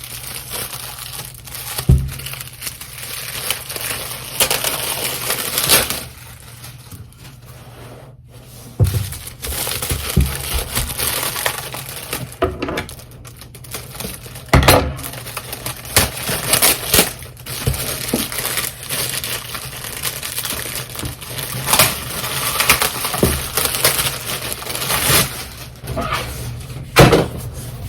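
Packaging being handled while an earring stand is unpacked: crinkling and crushing of wrapping, with scattered knocks.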